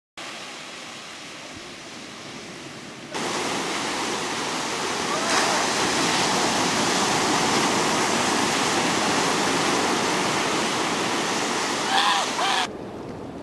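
Surf breaking on a sandy beach: a steady rush of waves, louder from about three seconds in, with a brief voice near the end before it cuts off.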